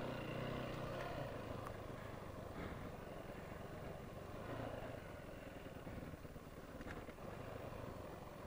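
Yamaha WR450F dirt bike's single-cylinder engine running faintly at low revs while riding, its pitch clearest in the first second or so, with a few light clicks.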